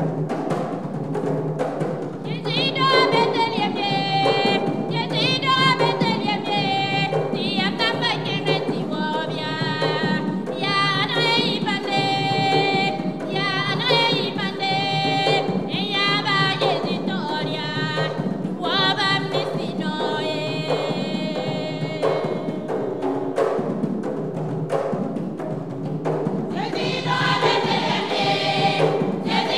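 Women's gospel choir singing with drum accompaniment. Drums alone open, the voices come in after about two seconds, drop out for a few seconds near the end while the drums carry on, then come back.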